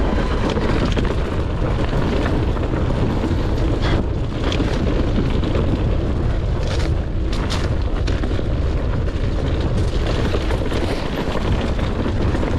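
A heavy, steady rumble of wind buffeting the microphone while riding a bike down a rough trail, mixed with tyre and frame rattle. Sharp knocks come through several times from bumps in the ground.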